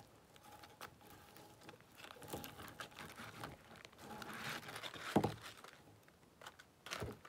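Paper fast-food bag and burger wrapper rustling and crinkling as hands dig through them, with scattered small clicks and one sharper crinkle about five seconds in.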